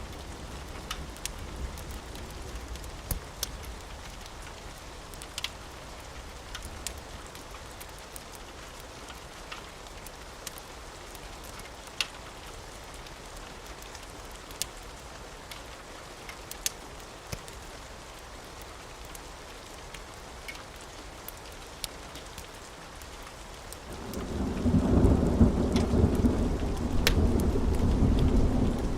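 Steady rain with scattered sharp crackles and pops from a wood fire. About four-fifths of the way through, a long low rumble of thunder starts and becomes the loudest sound.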